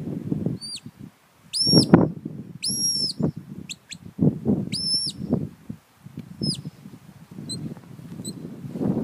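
Shepherd's whistle commands to a working sheepdog: a string of short whistle blasts that rise and fall in pitch, two of them held longer about two and three seconds in, and two brief pips near the end. A low rumbling noise runs underneath.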